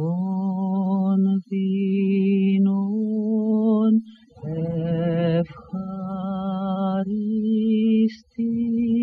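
Slow background music of long held notes with a wavering vibrato, in phrases broken by short pauses.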